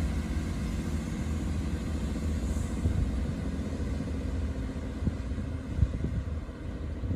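Diesel multiple unit, a Class 158 and Class 165, running under power as it pulls away, a steady low engine drone. Wind buffets the microphone with low thumps in the second half.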